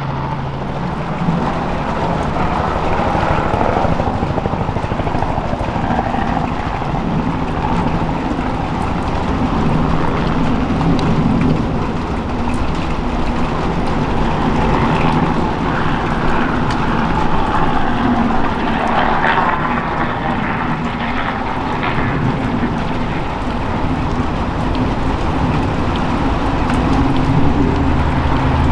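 Robinson R44 Clipper II helicopter hovering and flying: its rotor and Lycoming IO-540 six-cylinder piston engine run steadily, a little louder near the end.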